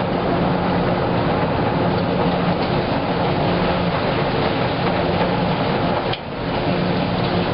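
Wascomat Junior W73 commercial front-load washer tumbling a wet load in its drum: a steady motor hum and rumble, dipping briefly about six seconds in.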